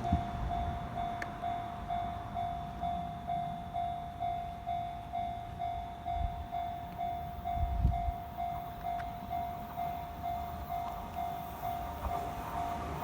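Japanese railway level-crossing warning bell ringing steadily, an electronic 'kan-kan' at about two strikes a second. The rumble of an approaching train rises near the end.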